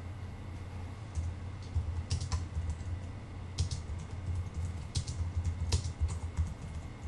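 Computer keyboard typing: irregular runs of keystrokes starting about a second in, over a steady low hum.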